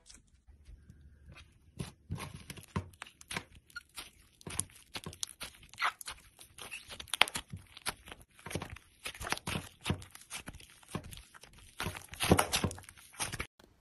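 Clear slime being squeezed and pressed by fingers, making irregular sharp wet clicks and pops. The sound starts about two seconds in and cuts off suddenly just before the end.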